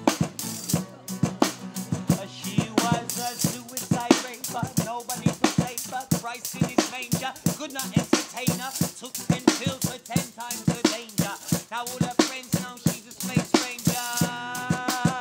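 A drum kit played live with a guitar: fast, busy snare, bass drum and cymbal hits over pitched lines that waver up and down.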